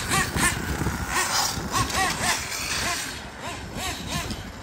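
Nitro-engined RC cars running on a track, their small glow engines revving up and falling back in short rising-and-falling bursts, about two a second.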